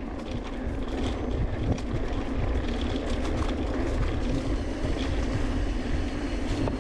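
Specialized Turbo Levo SL e-mountain bike riding down dirt singletrack, heard from a chest-mounted camera. Wind rumbles on the microphone over tyre noise and frequent small clicks and rattles from the bike.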